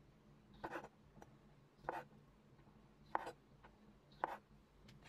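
Chef's knife slicing black olives in half on a cutting board: four separate cuts about a second apart, each a short knock of the blade through the olive onto the board.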